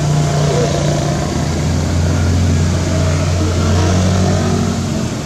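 Motor vehicle engine running steadily close by, a low hum whose note shifts lower about a second and a half in.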